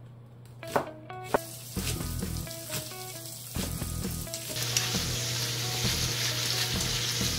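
A kitchen knife cutting on a plastic cutting board with a few sharp chops, then beef, onion and garlic chives sizzling as they are stir-fried in a frying pan, from about four and a half seconds in.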